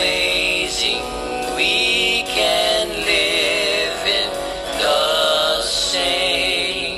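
A song with singing holding long, wavering notes over backing music.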